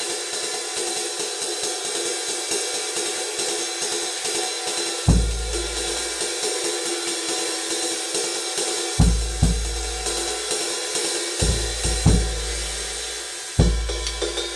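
22-inch Zildjian prototype ride cymbal with six rivets, played in a steady jazz ride pattern; the rivets add a sizzle to its wash. A few low bass-drum hits fall under it from about five seconds in.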